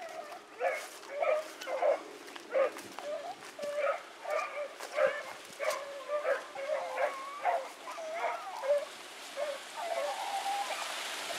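A pack of rabbit dogs baying in a quick run of short, repeated barks, several voices overlapping, as they run a rabbit. A steady hiss comes up near the end.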